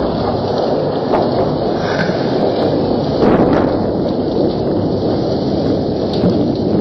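Thunderstorm: a steady, loud rush of wind and rain.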